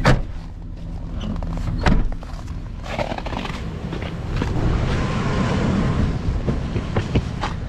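Van engine running, heard from inside the cabin as a steady low hum, with a sharp click at the start, another about two seconds in, a stretch of rustling in the middle and a few small clicks near the end.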